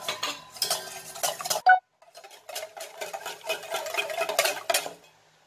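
Wire whisk beating eggs in a stainless steel bowl, its wires clicking rapidly against the metal. There is a short break about two seconds in, and the whisking stops near the end.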